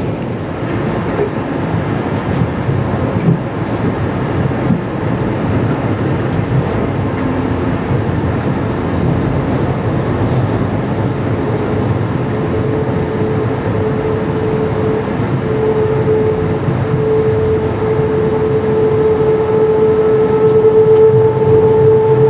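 Amtrak Piedmont passenger train rolling with a dense rumble as it slows for a station stop. About halfway through, a steady high-pitched squeal sets in and grows stronger toward the end, in keeping with brakes squealing as the train comes to a stop.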